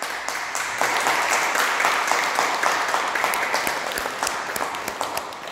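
Audience applauding, many hands clapping at once, thinning slightly near the end.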